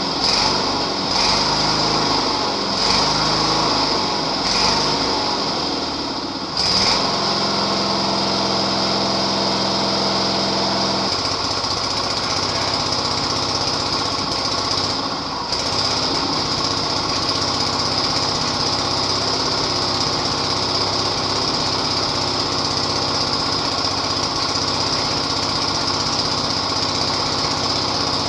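Sears SS/16 riding mower's small engine running. It rises and falls every couple of seconds at first, jumps in level about seven seconds in, and settles into a steadier run from about eleven seconds on.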